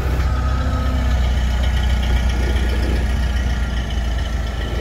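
Komatsu propane forklift's engine running steadily as it tows a loaded boat trailer, a continuous low rumble.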